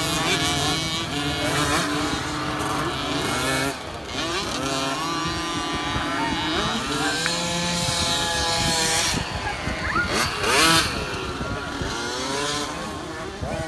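Several 50cc motocross bikes' small two-stroke engines revving hard, their pitches rising and falling over one another as the riders accelerate and shift around the track, loudest about ten seconds in.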